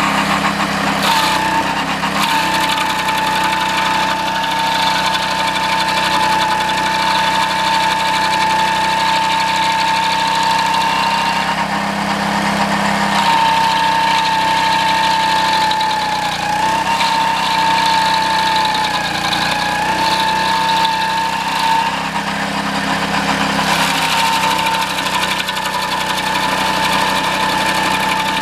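Single-cylinder 6.5 hp Honda engine running steadily on a homemade stump grinder, driving the cutting wheel through a 6:1 gear reduction. Its pitch sags briefly a couple of times past the middle.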